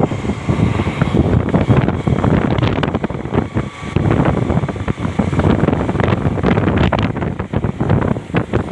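Heavy wind buffeting the microphone of a phone carried on a moving motorcycle, with rushing low noise from riding at speed.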